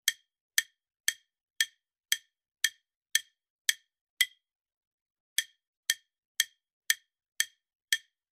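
Ticking of a quiz countdown timer sound effect: short, sharp clock-like ticks about twice a second, with one break of about a second midway.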